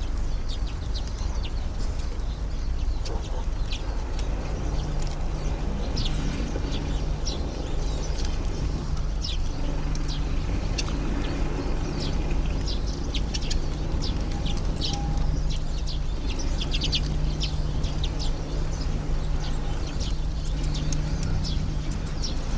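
Small finches and tits at a feeder giving many short, high chirps and calls, scattered through the whole stretch, over a steady low rumble.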